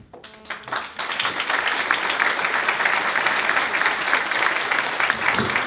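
Audience applauding, the clapping swelling up about a second in and then carrying on steadily.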